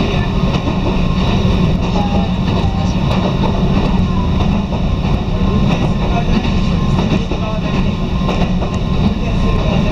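Steady running noise of an electric train on the Toyama Chiho Railway Main Line, heard from inside the passenger car: a constant low rumble with a thin steady higher tone above it.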